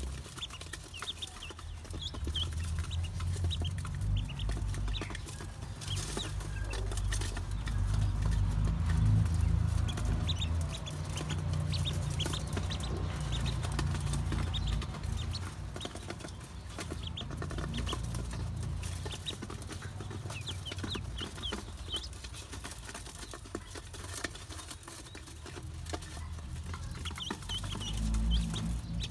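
Ducklings peeping in short, high calls scattered throughout as they feed, with light clicking of bills pecking feed off the bottom of an aluminium bowl. A steady low rumble runs underneath, loudest in the first half.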